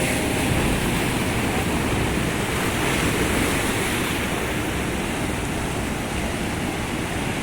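Storm surf on the Atlantic shore: waves breaking in a steady, dense rush of water.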